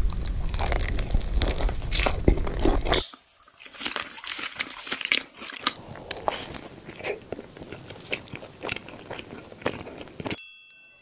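Close-miked biting and chewing of fast food, with crisp crunches. It is loud and dense at first, then about three seconds in it drops to quieter, scattered crunching and chewing.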